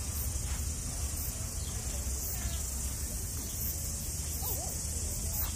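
Outdoor garden ambience: a steady high hiss of insects over a low rumble, with a few faint short chirps about halfway through and near the end.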